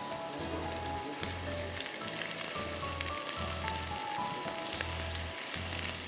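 Sliced raw onion and whole spices (black peppercorns, cloves, green cardamom and cinnamon) sizzling steadily in hot oil in a wok as they are stirred with a wooden spoon, at the start of frying the onion to a light golden.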